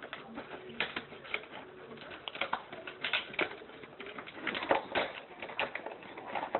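Plastic dog-treat packets crinkling and rustling as a hand rummages through them in a basket, an irregular run of crackles and clicks.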